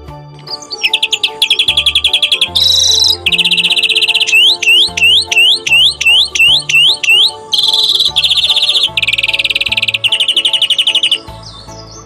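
Songbird singing a loud, varied song of rapid trills and a run of repeated rising whistles, with pauses between phrases, over quiet background music.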